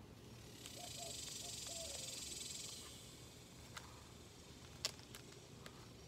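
A soft hiss swells and fades over about two seconds. Then come a few light clicks and one sharper snap from hands working seedlings out of a plastic nursery tray.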